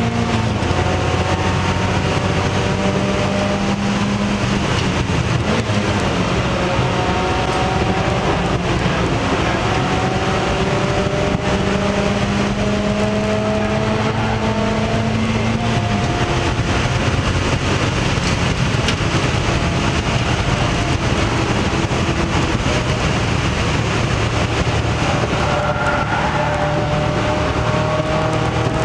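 Mazda Miata race car's four-cylinder engine running hard under load, heard from inside the stripped, caged cockpit. Its pitch climbs slowly, drops back at each shift and climbs again, over steady road and wind noise.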